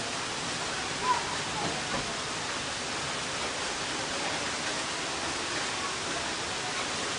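Steady rain falling, an even hiss with no break, with a short sharper sound about a second in.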